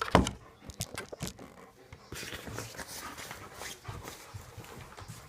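A German Shepherd shuffling about as a rain jacket is fitted on her. There are scattered clicks and knocks, the loudest just after the start, then a steady rustle from about two seconds in.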